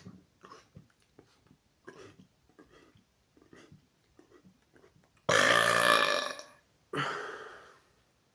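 A man burping: faint small mouth clicks, then a loud, long burp about five seconds in, followed a moment later by a shorter second burp that trails off.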